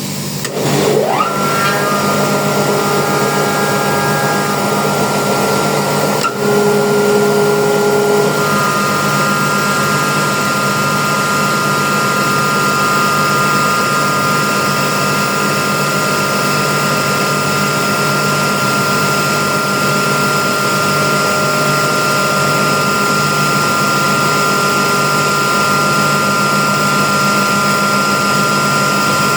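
Airhorse AHB20A rotary screw air compressor starting up, its whine rising to a steady pitch within about a second and then running steadily. There is a sharp click about six seconds in, after which it runs slightly louder.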